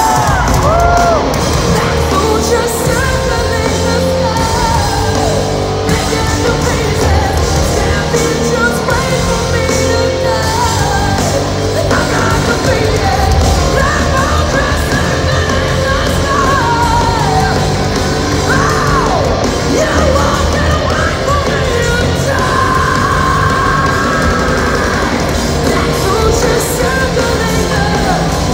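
Hard rock band playing live through an arena PA, heard from among the crowd: distorted guitars, bass and drums under a woman's sung vocal lines.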